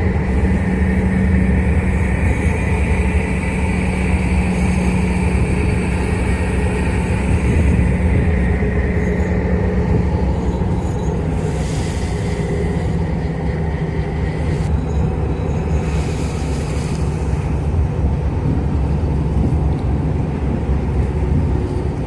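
Boat engine running steadily: a continuous low rumble with a steady hum.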